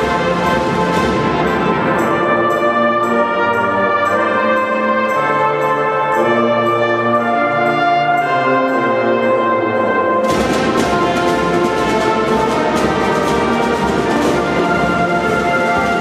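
Youth marching band of brass instruments and drums playing. About two seconds in the drums drop back to light, steady taps under held brass chords; about ten seconds in the full drum section comes back in.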